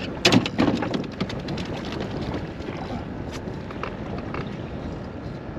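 Wind buffeting the microphone and water against a small boat on open water. A quick run of loud knocks and clatter comes about half a second in, then scattered light clicks.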